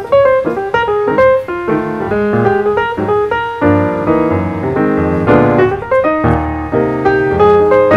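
Background piano music: a steady run of quick notes.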